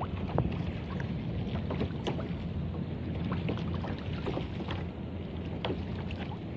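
Choppy water lapping and slapping against a kayak's hull, with a steady low rumble of wind on the microphone and scattered small splashes and knocks.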